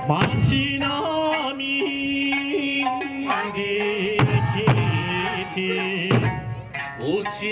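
Background music: a melody with pitched instruments, and perhaps voice, over a beat of sharp drum hits.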